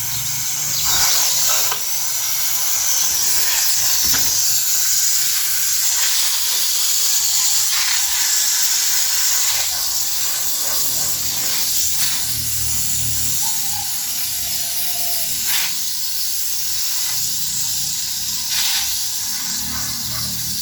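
Water spraying from a garden hose onto rooftop plants: a steady hiss with a few brief sharper bursts.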